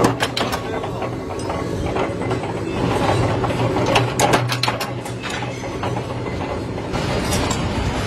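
Workshop machinery running with a steady low hum, with clusters of sharp metallic clicks and clinks of steel parts, the busiest about three to four and a half seconds in.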